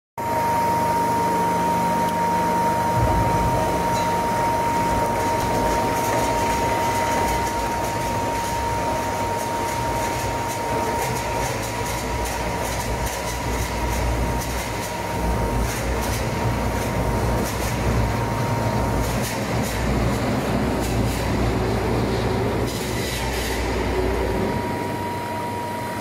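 Rotary log debarking machine running: electric motors and gearboxes give a steady whine, with a heavier rumble setting in about three seconds in as the log turns between the rollers and its bark is stripped, and irregular knocking of wood.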